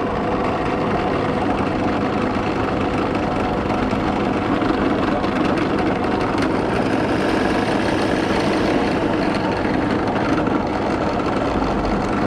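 Bench drill press running steadily, its bit boring a roughly 14 mm hole into a wooden lure blank for the lead belly weight; the sound stops at the end.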